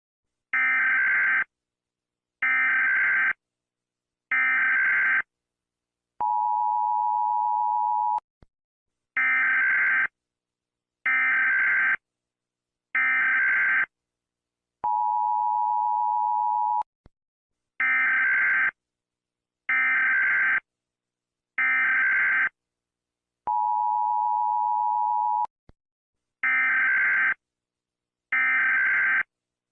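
US Emergency Alert System alarm: three one-second bursts of buzzy digital header tones, then a two-second steady two-tone attention signal, the cycle repeating over and over.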